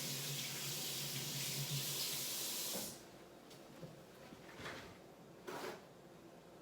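A steady hiss with a low motor hum, like a small electric blower running, switched off sharply about three seconds in; then a few soft knocks.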